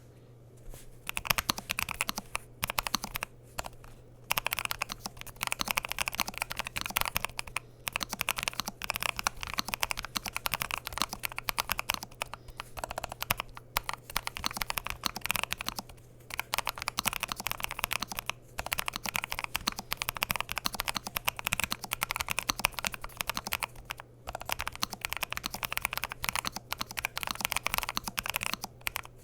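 Fast continuous typing on a Lofree Flow2 68 low-profile mechanical keyboard with Kailh Cloud Pulse tactile switches, PBT/PC keycaps and an aluminium case: a dense run of key clacks broken by brief pauses every few seconds. A steady low hum sits underneath.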